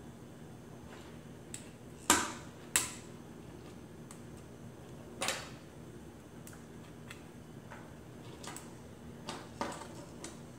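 Sharp plastic clicks and taps from 3D-printed prosthetic hand parts being handled as a finger is taken off and slid back onto its base joint. Two loud clicks come close together about two seconds in, another comes about five seconds in, and a few lighter ones follow near the end.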